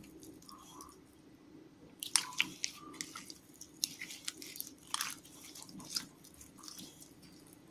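Slime being squished and pressed by hand, giving scattered sticky clicks and small crackling pops, a cluster of them about two seconds in.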